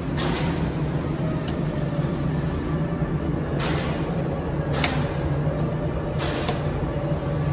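Steady low hum with a few short bursts of noise about three and a half, five and six seconds in.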